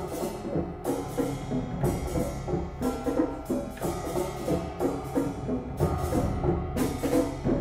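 Percussion ensemble playing: drums, timpani and bass drum with pitched mallet-instrument notes, and strong accented strikes about once a second.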